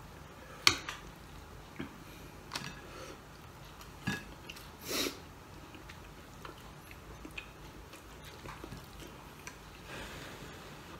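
Close-up eating sounds: chewing and small clicks of food handled on a plate by hand, with a sharp clink about a second in, a few more knocks, and a longer noisy smack around five seconds in.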